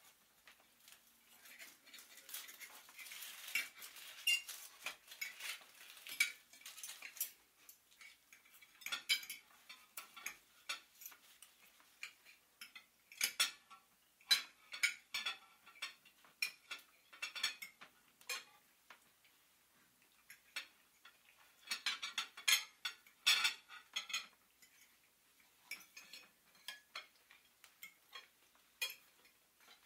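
Cutlery and dishes clinking and clattering irregularly, in bunches of quick light clinks with short quieter gaps between.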